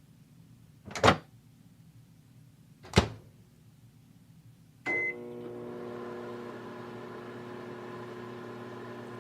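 Two sharp clunks, then a short beep and a microwave oven starting up and running with a steady hum, heating a water bottle.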